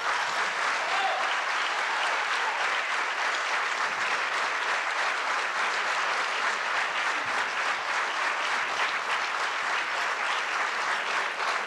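Theatre audience applauding steadily: a dense, even patter of many hands clapping.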